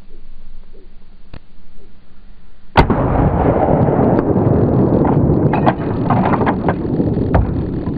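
A single gunshot from a hunting rifle or shotgun about three seconds in, followed by several seconds of loud, rough noise.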